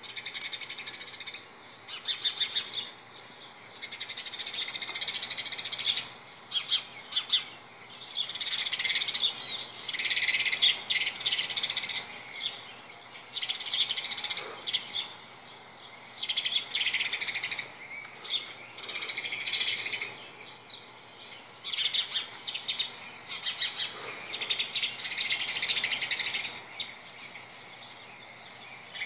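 Eagle calls from a nest webcam, played through a laptop's speaker: bursts of rapid high chirps that come again every second or two, with short quiet gaps between.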